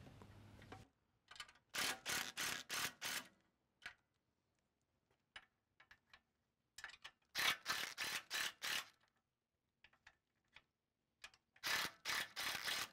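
Steel wrench working the nuts on a corn head's stalk roll shaft mounts, heard as three runs of quick metallic clicks, about four a second. The nuts are being loosened so the out-of-line stalk roll shafts can be realigned.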